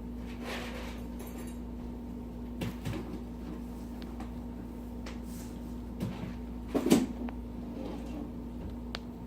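A few short knocks and clatters over a steady low hum, the loudest a cluster about seven seconds in.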